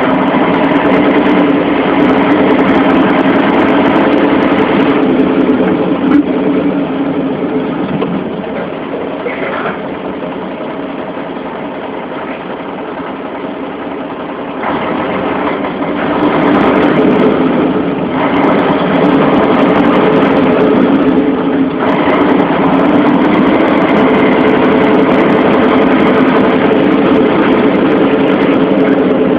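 Heavy vehicle's engine running steadily. It gets quieter for several seconds about a third of the way in, then returns to full volume.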